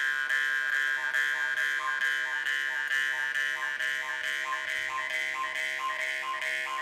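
Yakut khomus (jaw harp) being played: a steady buzzing drone with overtones that shift as the player shapes her mouth. About halfway through, it settles into a rhythmic overtone pulse of about two beats a second.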